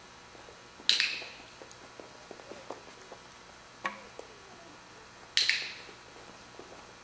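Two loud, sharp cracks about four and a half seconds apart, each trailing off in a short hissy echo in a large hall, with a fainter click between them.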